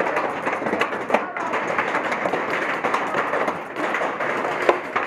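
Many paintball markers firing in rapid, overlapping shots, a dense crackle of pops with no let-up, under indistinct shouting voices.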